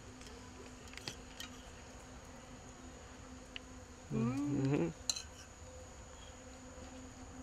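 Steady insect buzzing with a faint high whine beneath, a few light clicks of a spoon against a plate, and a short murmur of a voice about four seconds in.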